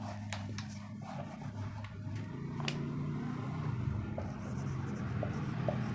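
Whiteboard duster rubbing across the board with a few sharp clicks, then a marker pen writing on the whiteboard with short, faint squeaks, over a steady low hum.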